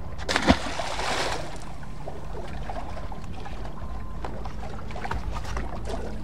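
A released bull red drum, about 35 inches long, hits the water below a pier with one sharp splash about half a second in, followed by about a second of spray. A steady low rumble runs underneath.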